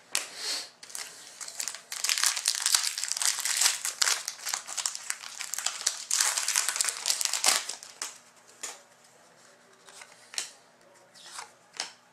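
A trading card pack's foil wrapper crinkling and tearing as it is opened, with dense crackling for about six seconds. After that come a few short rustles as the cards inside are handled.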